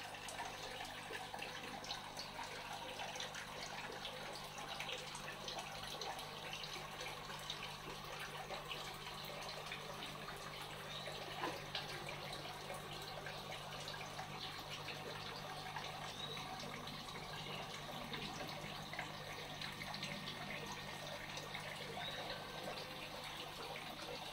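Water running steadily into a small tank, trickling and splashing with many small drips, over a low steady hum.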